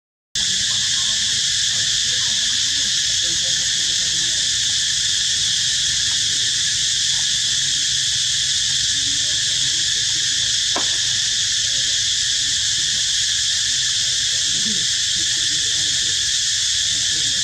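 Steady insect chorus, a continuous high-pitched drone that does not change, after the sound cuts out for a split second at the very start.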